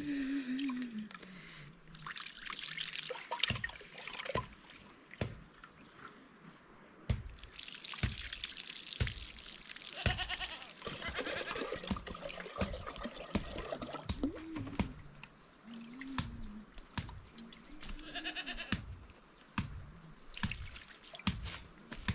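Water splashing and trickling as things are washed by hand beside a plastic bucket and a steel pot, with many short knocks and clunks of the vessels.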